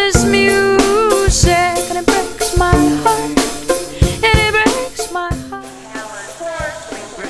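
Pop music with a drum-kit beat and a gliding melodic line over it, getting quieter about five seconds in.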